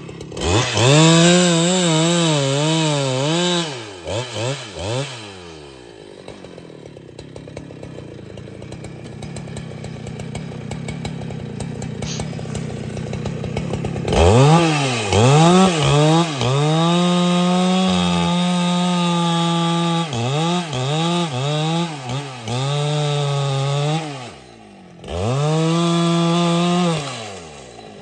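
Husqvarna 395XP two-stroke chainsaw at full throttle cutting wood, its pitch wavering and dipping as the chain bites. It comes in bursts: about four seconds of cutting, a few quick blips of the throttle, a lower stretch of several seconds, then a long cut of about ten seconds with brief dips, and a last burst that drops off shortly before the end.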